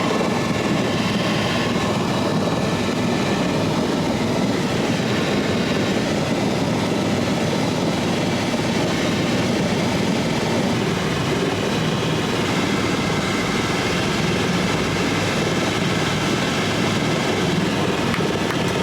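Airbus helicopter running, heard from inside the cabin as a loud, steady rotor and turbine noise.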